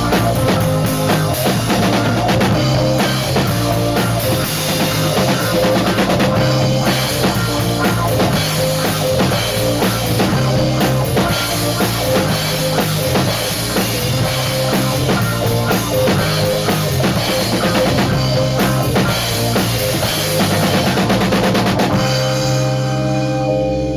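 Rock band playing live, with drum kit, bass drum and guitar. The song ends about two seconds before the close on a held chord that rings out.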